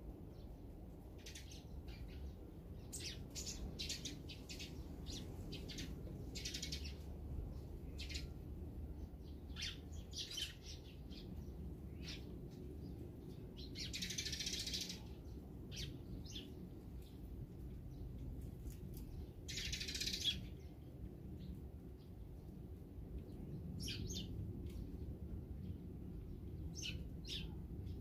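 Small songbirds chirping in short, scattered calls, with two longer noisy bursts in the middle, a few seconds apart, over a steady low background rumble.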